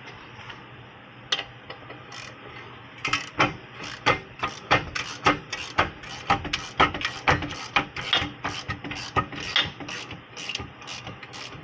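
Hand ratchet wrench clicking as it is worked back and forth. There is a single click about a second in, then steady clicking from about three seconds in, roughly three clicks a second.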